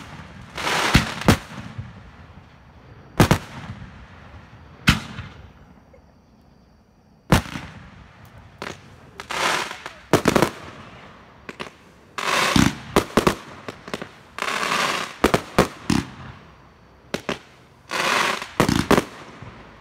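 Consumer aerial fireworks going off in quick succession: sharp bangs of bursting shells, some in close pairs, mixed with noisy rushes lasting about a second each. There is a short lull about five seconds in, then the barrage picks up again.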